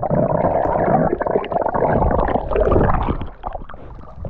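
Underwater sound through a submerged camera: a muffled rushing and gurgling of air bubbles churned up by a swimmer plunging into the sea. It dies down about three seconds in.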